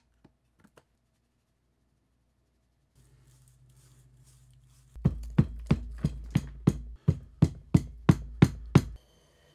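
Green foundry sand sifting with a faint hiss through a sieve riddle into a wooden mold flask. About halfway through, a run of about a dozen sharp, even knocks follows at about three a second as the sand is packed down into the flask.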